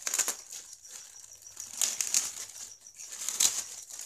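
Clear plastic polybag crinkling and rustling as hands press and turn the folded T-shirt inside it, in three brief flurries about a second and a half apart.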